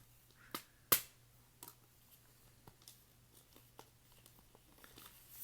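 Handling of plastic jewel case album packaging and photo cards: two sharp clicks about half a second and a second in, then scattered light taps and clicks.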